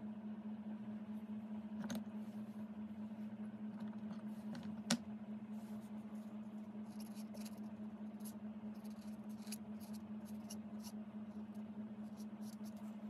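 Faint, scratchy ticks of a paintbrush working wet paint on card in the second half, over a steady low hum. A sharp click about five seconds in is the loudest moment.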